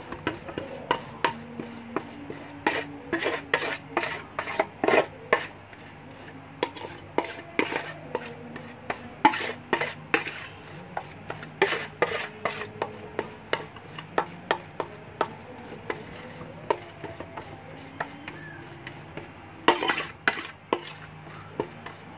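Metal spoon scraping and clinking against a stainless steel basin as it presses and smears a thick cosmetic paste to work out the lumps, in irregular strokes with sharper clinks here and there.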